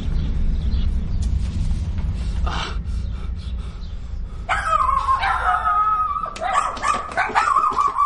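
A dog whining and yelping in high, wavering cries from about halfway through, over a steady low rumble.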